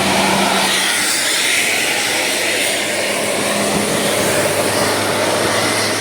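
A large bus running close by: a steady, loud rush of engine and road noise over a low engine hum, with no horn sounding.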